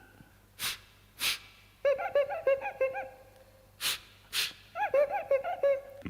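A man making a vocal sound effect with his mouth: two sharp breathy hisses, then a quick run of short squeaky chirps. The whole pattern is done twice.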